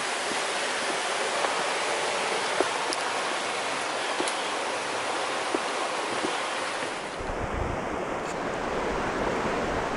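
Small rapids rushing steadily. About seven seconds in, this gives way to a low wind rumble on the microphone.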